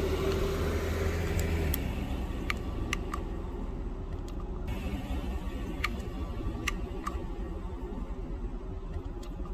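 A car engine hums steadily nearby, fading after about two seconds, while the plastic cap of a Gatorade Zero bottle is twisted open with a scatter of short light clicks.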